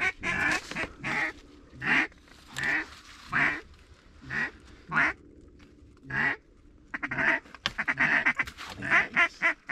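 Loud mallard-style duck quacks: single quacks about every half second to second, then a quick run of rapid quacks about seven seconds in.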